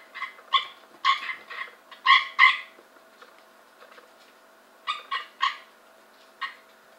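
Cope's gray treefrogs calling inside a lidded plastic tub: short calls in quick runs, several in the first two and a half seconds, three more about five seconds in and a last one near six and a half seconds.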